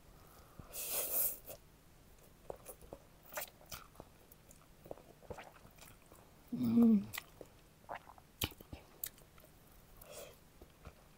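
Close-up mouth sounds of eating spicy instant ramen noodles: scattered wet chewing clicks and smacks, a short breathy sound about a second in, and a brief hummed 'mm' a little past the middle.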